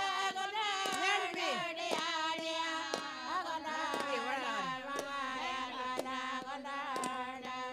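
Anangu women singing an Inma song together, with gliding, falling phrases and long-held notes, while clapsticks beat evenly about twice a second.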